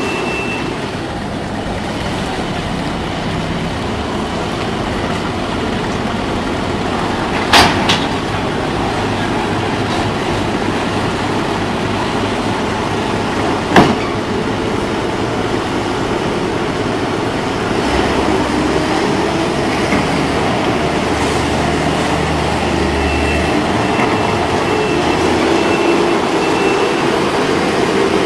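Skid steer loader running steadily, its engine noise constant, with two sharp metallic bangs: one about seven and a half seconds in and another about six seconds later.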